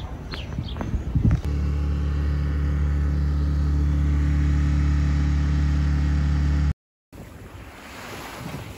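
A sailboat's engine running steadily at constant speed for about five seconds. It cuts off suddenly, and is followed by wind on the microphone and water washing past the hull under sail.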